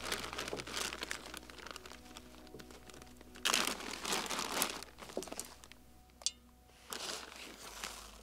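Close crinkling and rustling of crinkly material being handled, in irregular spells, loudest about three and a half seconds in, with a shorter spell near the end.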